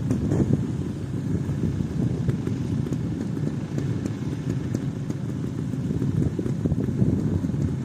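Several single-cylinder trials motorcycles running at idle together, a steady low chugging.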